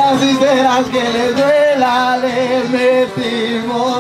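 A man singing into a microphone, holding long wavering notes with no clear words, over backing music.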